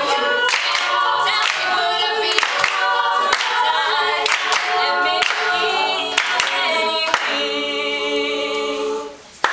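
All-female a cappella group singing a pop song's closing bars, a lead voice over the backing voices, with a sharp clap on the beat about once a second. About seven seconds in the claps stop and the group holds a final chord, which cuts off shortly before the end.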